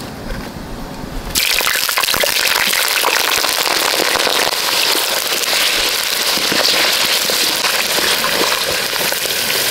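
Cut potato chunks dropped into hot oil in a clay pot: about a second in, a sudden loud sizzle starts and carries on steadily, full of fine crackling as the potatoes fry.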